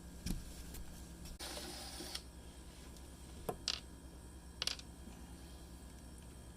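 A few light, sharp clicks and a short rustle over a faint steady low hum.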